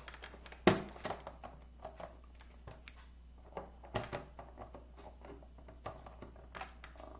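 Scattered small clicks and plastic rattles from a plastic toy packaging tray being worked at with scissors to cut the pieces free, with the sharpest snaps about two-thirds of a second in and again about four seconds in.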